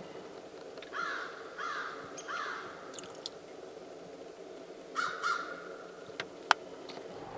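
Common ravens calling at a deer carcass: three short hoarse calls about a second in, then two more about five seconds in. A sharp click near the end.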